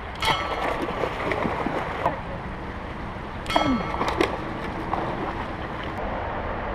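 Two bowfishing shots into shallow creek water, about three seconds apart. Each is a sudden snap of the released bow and arrow followed by splashing as the struck carp thrashes, over a steady wash of moving water.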